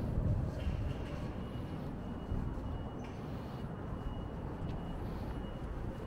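Low rumble of passing vehicles, with a faint steady high-pitched whine from about half a second in until near the end.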